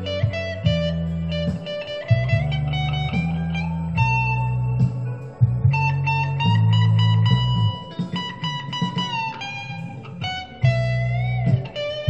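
Electric guitar playing an improvised blues lead in B, with long held notes and string bends sliding up in pitch, over a low repeating bass line.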